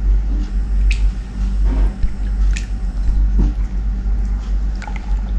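A few scattered soft clicks and squishy handling sounds over a steady low hum.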